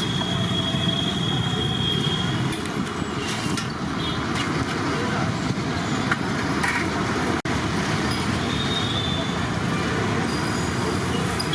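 Steady street traffic noise, with a brief dropout about seven seconds in.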